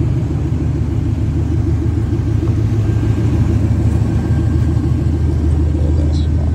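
Pickup truck engine idling steadily, low-pitched and loud, with no revving.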